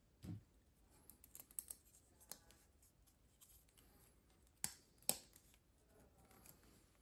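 Light handling sounds in a small room: a soft thump, a scatter of small clicks, then two sharp clicks about half a second apart, with a faint rustle near the end.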